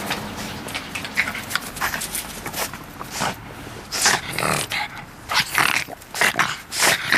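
A pug making a quick, irregular run of short vocal noises.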